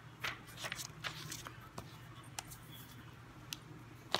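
Scattered short rustles and taps of paper and small objects being handled, over a low steady hum.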